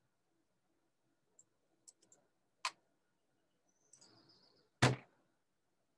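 A few small clicks, a sharper click about two and a half seconds in, then a brief faint hiss and a louder click with a dull thump near the end.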